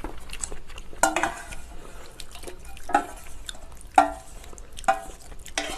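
Utensils clinking against a bowl about five times, roughly a second apart, as ramen noodles and kimchi are stirred and mixed.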